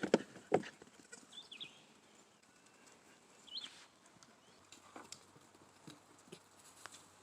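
A few sharp knocks in the first second, then sparse faint steps or knocks, with two short high chirps from a bird, most likely from the farm's poultry.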